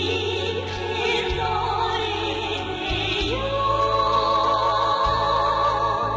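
Music: a singer holding long notes with a wide vibrato over a steady low accompaniment, moving to a higher held note about three seconds in.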